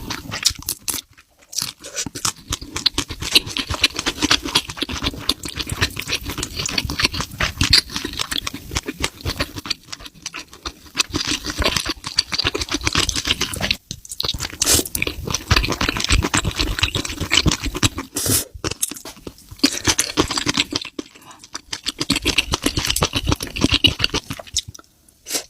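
A person eating close to the microphone: steady chewing and crunching, with dense clicks for most of the stretch and a brief pause about halfway through.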